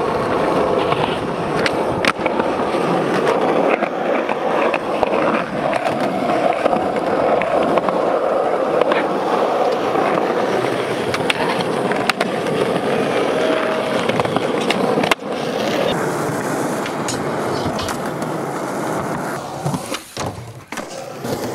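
Skateboard wheels rolling loudly over rough, worn concrete, with a few sharp clacks of the board. The sound thins out and grows quieter after a sudden break about two-thirds of the way through.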